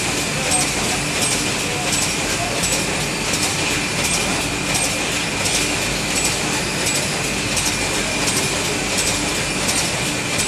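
Pasta packaging line machinery running steadily, with a sharp click repeating evenly about every 0.7 seconds over a constant high whine and a low hum.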